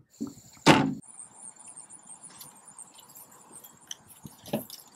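A single short, loud noise about two-thirds of a second in, then quiet outdoor ambience with a steady, high, shrill insect chirping and a few faint clicks.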